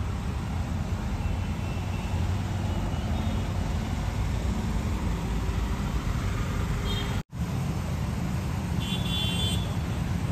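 Steady low rumble of road traffic in the background, with a faint high tone near the end. The sound cuts out for an instant about seven seconds in.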